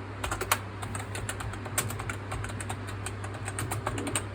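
Fast, irregular typing on a CosmicByte Dragon Fly RGB membrane keyboard, many key presses in quick succession, over a steady low hum.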